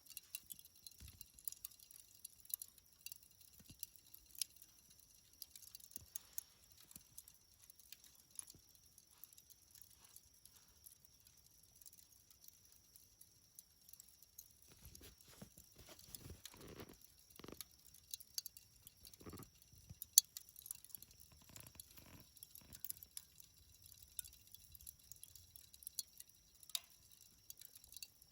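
Burning charcoal crackling in a fire: scattered sharp little snaps and ticks, with a few duller, softer sounds in the middle stretch.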